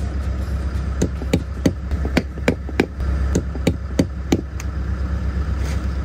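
Hand hammering: a quick run of about a dozen sharp strikes, roughly three a second, on the log wall as siding is pried off a log cabin, over a steady low hum.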